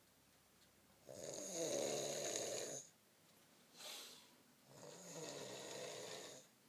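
A person snoring: two long snores about three and a half seconds apart, each with a low rumble under a breathy hiss, and a short airy breath out between them.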